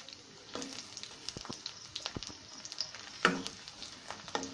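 Crushed garlic frying in hot soybean and coconut oil in a karahi, sizzling with many small crackles, while a metal spoon stirs it. The garlic is being fried lightly so it doesn't burn. There is one louder knock about three seconds in.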